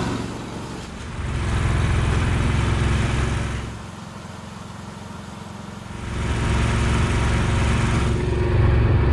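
Air compressor running with a pulsing low rumble and hiss; it drops away for about two seconds in the middle, then comes back and grows louder near the end.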